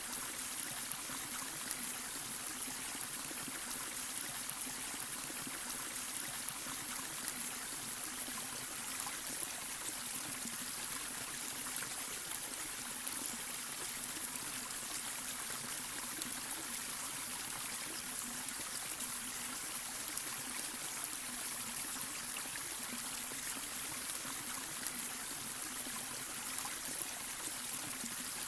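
Babbling brook: water running steadily over stones, a continuous trickling and splashing with small gurgles.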